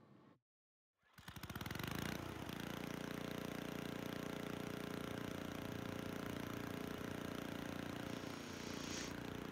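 After a brief total silence, a steady motor-like drone fades in and holds at a constant pitch.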